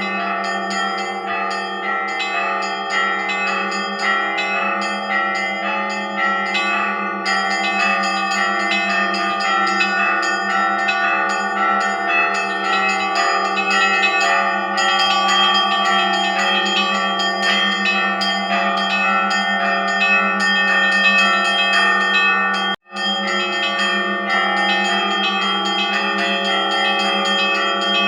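Russian Orthodox church bells (zvon) ringing together in a continuous, many-toned peal, with small bells struck rapidly over the deeper ringing bells. There is a split-second break about 23 seconds in.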